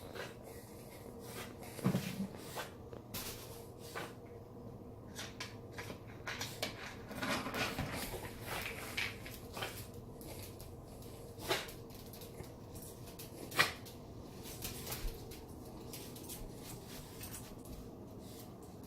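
Household handling sounds: scattered clicks and knocks like cupboard doors and containers being moved, with a busier rustling stretch about halfway through and one sharp knock, the loudest, near the end.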